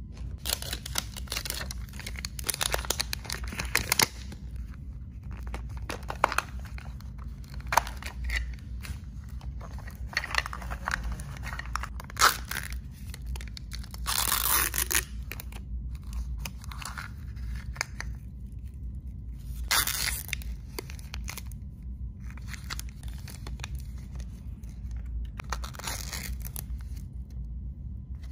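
Plastic wrappers of a Zuru 5 Surprise Mini Brands capsule crinkling and tearing as they are peeled off by hand, in irregular bursts with pauses between, over a low steady hum.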